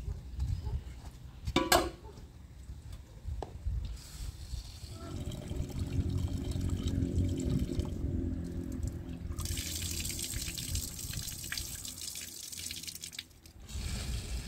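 Water pouring and splashing. It gets hissier about two thirds of the way in and stops about a second before the end.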